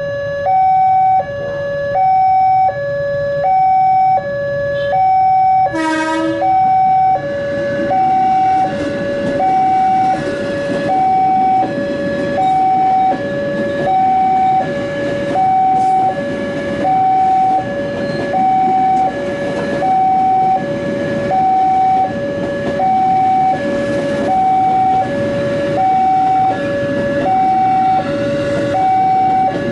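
Level-crossing warning alarm sounding a steady two-tone electronic hi-lo, switching pitch about every 0.7 s. About six seconds in there is a short loud blast. After it, the rumble of a JR 205 series KRL electric commuter train passing over the crossing runs under the alarm.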